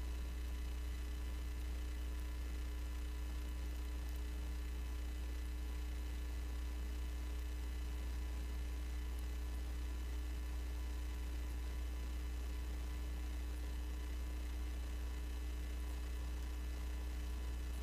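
Steady low electrical hum with faint hiss, unchanging throughout.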